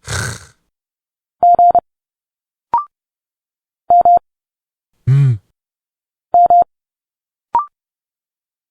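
Morse code sent at 30 words per minute: a steady mid-pitched beep keyed in quick groups of two or three elements, one letter every two and a half seconds or so. Between the letters come short spoken speech sounds, one hissy and one voiced, plus two brief chirps.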